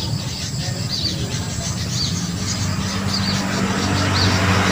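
A bird chirping repeatedly, short high calls about once a second, over the low hum of a motor vehicle's engine that grows louder in the second half.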